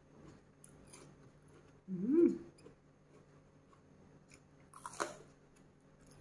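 Close-miked chewing of raw cucumber and fresh greens, with soft crunching mouth sounds. A short hummed vocal sound about two seconds in is the loudest thing, and there is a brief sharp noise about five seconds in.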